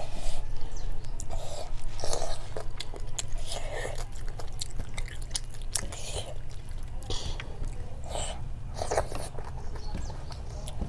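Close-up mouth sounds of a person chewing food, with irregular wet smacks and small clicks, over a steady low hum.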